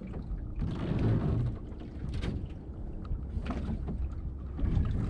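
Water slapping and splashing against the hull of a small open boat on the sea, with a steady low rumble of wind on the microphone and a few sharp splashes.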